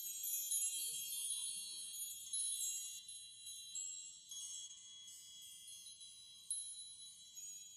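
Music outro of high, tinkling chime tones, drenched in reverb, with no vocals. A lower note drops away about a second in and the chimes slowly fade.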